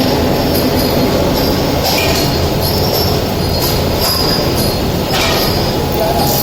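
Automatic PLC-controlled fan-shaft drilling machine running, drilling both ends of a shaft: a loud, steady machine noise with a squealing edge, and a few brief noisy bursts.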